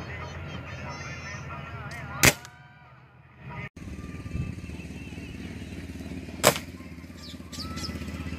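Two sharp shots from a Diana 34 spring-piston break-barrel air rifle, about four seconds apart.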